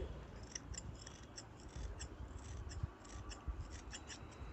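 Large steel tailor's shears making quick, faint snips through layered fabric, about three short cuts a second, as the edge is trimmed into a curve.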